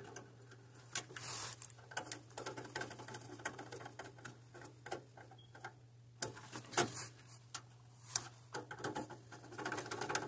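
Irregular small clicks and scrapes of a screwdriver working the screw terminals on a furnace control board as thermostat wires are fastened in, with wires and gloved hands handling near the microphone. A steady low hum runs underneath.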